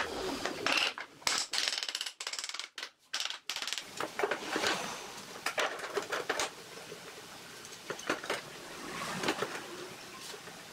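Scattered light knocks and clicks of hard objects being handled, irregular and denser in the first few seconds, over a faint hiss.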